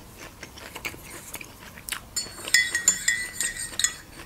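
Quiet chewing with small mouth clicks, then a run of five or so light clinks of a utensil against a dish, each with a short bright ring.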